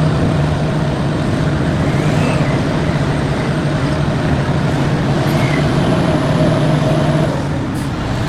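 Engine of heavy machinery running steadily, a loud, even low drone with a constant pitch.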